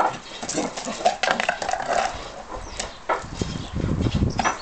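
Labrador puppy making low, rough dog noises close by for about a second and a half near the end, after a few scattered short sounds.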